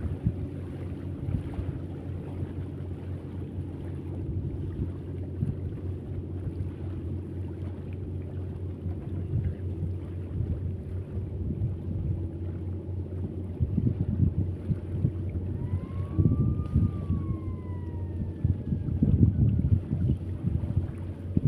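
Steady low engine hum with wind buffeting the microphone in gusts, stronger in the second half. About two-thirds of the way through, a short whistle rises and then falls.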